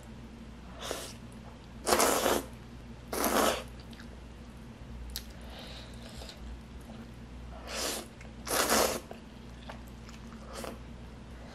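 A person slurping instant noodles off chopsticks in several short slurps, the loudest about two seconds in and again about three-quarters of the way through.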